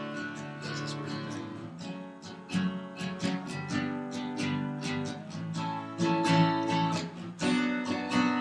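Acoustic guitar strumming chords in an instrumental passage between sung lines, the strokes coming again and again.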